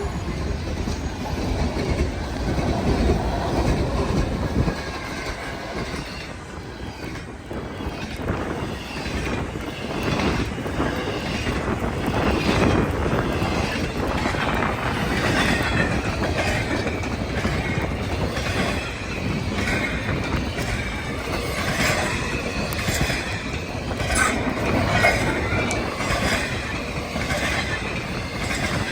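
Freight train passing: a heavy locomotive rumble for the first few seconds, then rail cars rolling by with wheels clicking over rail joints and intermittent wheel squeal.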